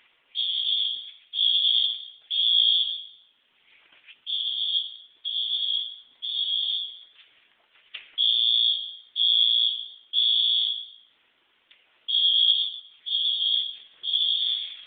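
Fire alarm horn sounding the three-beep temporal evacuation pattern: three high beeps about a second apart, a pause, then again, over and over. The horn is covered with tape, which makes it a lot quieter.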